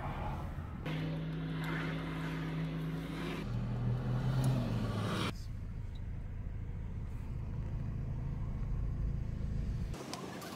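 A road vehicle's engine and road noise, a low steady hum that shifts pitch a couple of times.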